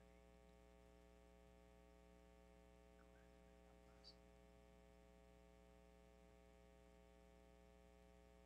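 Near silence with a steady electrical mains hum from the sound system. One faint click about four seconds in.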